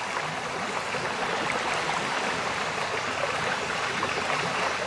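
Ambient music track in a passage of steady, crackling noise like running water, with no held notes.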